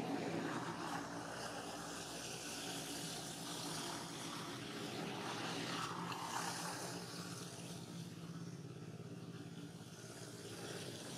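Steady outdoor background noise: a low hum under a rushing hiss that swells near the start and again about six seconds in.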